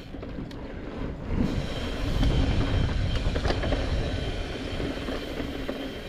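A mountain bike being ridden on a dirt trail: a steady low rumble of tyres on the ground and wind on the microphone, with a few clicks and rattles from the bike.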